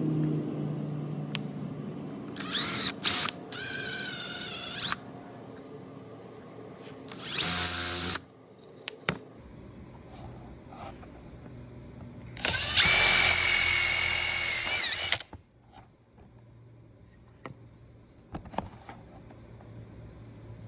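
Electric drill running in several separate bursts: two quick blips, then runs of about a second and a half, under a second, and a longer one of about two and a half seconds, with small clicks and knocks of work between them.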